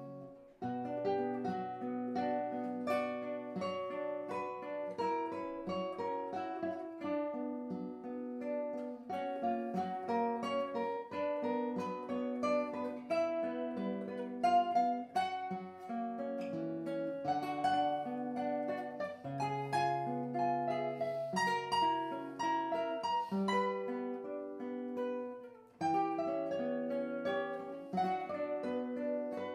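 Duet of two handmade nylon-string classical guitars by luthier Li Jinquan, one plucking a melody over the other's held bass notes and accompaniment. The playing breaks off briefly just after the start and again near the end.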